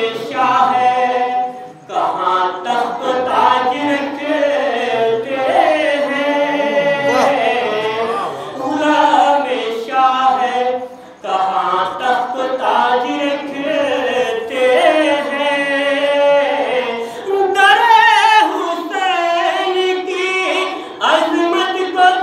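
A man's voice singing a devotional poem into a microphone in a melodic, chanting style, without instruments. He breaks off briefly about two seconds in and again about eleven seconds in.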